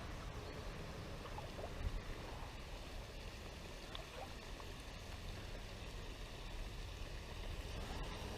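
Steady rush of flowing creek water, with a low rumble beneath it and a few faint short high chirps.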